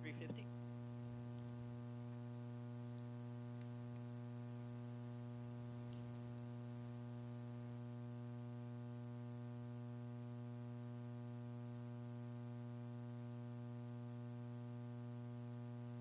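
Steady electrical mains hum with a buzzy stack of overtones on the countdown audio feed, with a few faint ticks about four and six seconds in.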